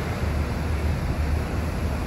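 Steady rush of white water churning along the hull of the ferry MV Bretagne under way at sea, mixed with a low rumble of wind on the microphone.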